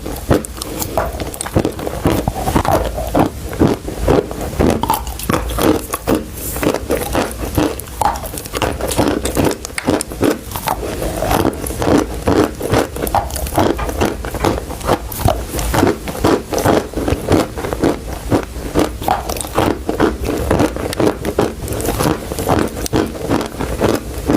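Chalk sticks being bitten and chewed close to the microphone: a dense, continuous run of crisp, chalky crunches.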